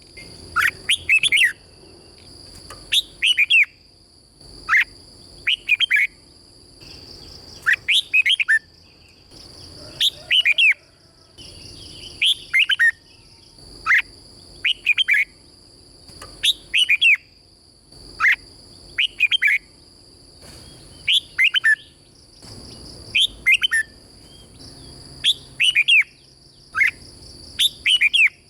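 Red-whiskered bulbul singing short, clear, whistled phrases, one every second or two and often in quick pairs. A faint, steady, high-pitched tone runs underneath.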